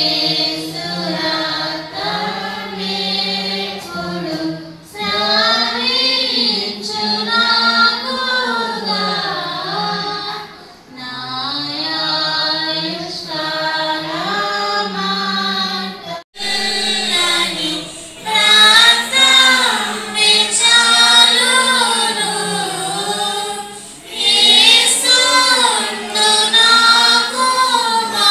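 A congregation singing a hymn together, phrase by phrase with short pauses for breath. The singing cuts out for an instant about halfway through, then carries on.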